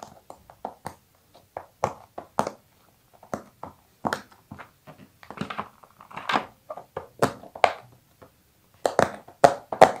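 Large round silicone pop-it fidget toy having its bubbles pressed through by fingers, making a string of irregular short pops that come faster near the end.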